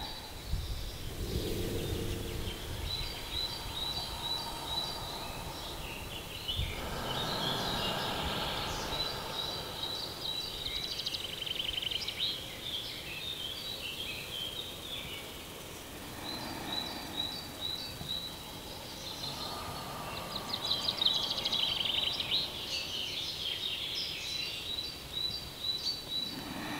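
Small birds chirping and trilling, many short high notes in quick runs, over a steady outdoor background hiss that swells now and then.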